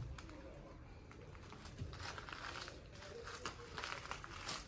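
Faint rustling with a few scattered light clicks.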